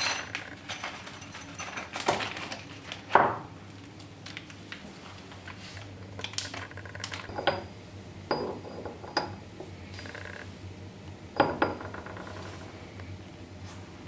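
Steel jaws and parts of a Nova Titan III woodturning lathe chuck being handled: a series of separate sharp metal-on-metal clinks and knocks, each with a brief ring, the loudest about three seconds in and a quick pair about eleven seconds in.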